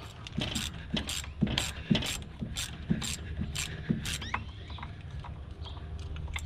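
Socket ratchet clicking in short back-and-forth strokes as a nut is turned on the throttle lever of a Cummins diesel's injection pump, about two clicks a second for the first four seconds, then only a few.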